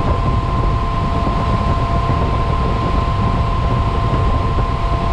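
A direct-fired make-up air unit running, its gas burner lit at low fire: a steady loud rush of air and flame with a thin, steady high tone over it.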